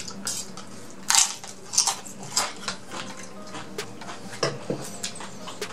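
Close-up eating sounds: crunchy bites and chewing of food, an irregular run of sharp crackles with the loudest crunches about one, two and two and a half seconds in, with light tableware clicks.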